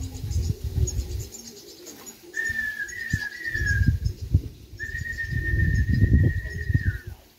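Two high whistled notes, the first wavering for about a second and a half, the second held steady for about two seconds and dipping at its end: a pigeon fancier whistling to call his racing pigeons down to the loft. Low gusts of wind rumble on the microphone throughout.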